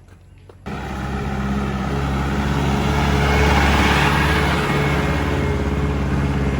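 A motor vehicle's engine running with road noise, starting abruptly about half a second in and swelling to a peak midway before easing slightly.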